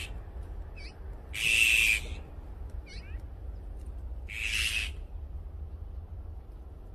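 Azure-winged magpies giving harsh, noisy calls: a loud one about a second and a half in and a softer one about four and a half seconds in, with a few faint short thin notes between.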